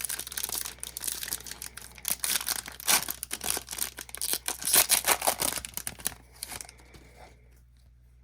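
Crinkling and rustling of a trading-card pack wrapper and cards being handled, with sharp crackles, stopping about six and a half seconds in.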